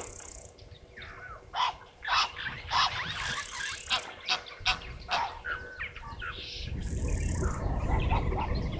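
Short, sharp animal calls repeated irregularly, mixed with a few bursts of high hiss. Low rumbling noise rises about two-thirds of the way in.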